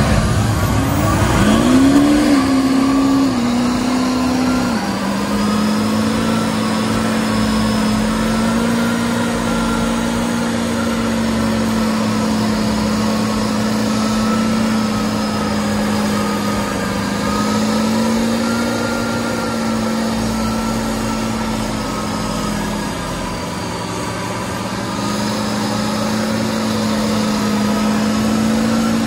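Big off-road truck engine revs up about a second in, then holds a high, steady pitch that wavers a little, like an engine held at high revs through a long pull.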